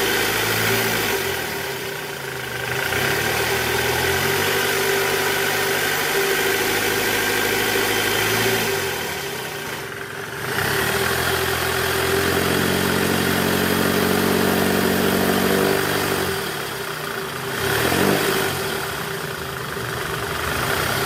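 Toyota Camry 2AZ-FE 2.4-litre four-cylinder engine running in gear, revved lightly around 1200 rpm so that its speed rises and falls a few times, for a check of the drive-belt tensioner.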